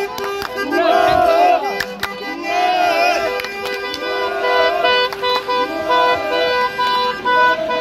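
Car horns honking, some held long and one beeping in a quick rhythm in the second half, over football fans chanting in rise-and-fall phrases about once a second.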